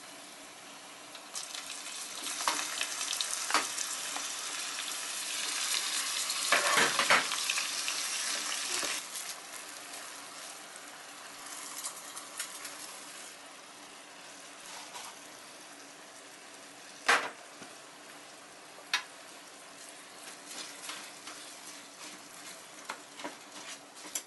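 Seafood mix of shrimp, squid and clams sizzling in hot oil in an aluminium mess tin, swelling about a second and a half in as it goes into the pan, loudest a few seconds later, then easing to a steady low frying hiss. A wooden spatula stirs and knocks sharply against the tin several times, and raw rice is poured in and stirred through the oil.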